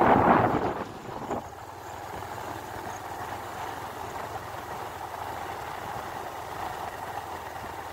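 Steady running noise of a vehicle travelling along a road, with a louder rush of noise in the first second.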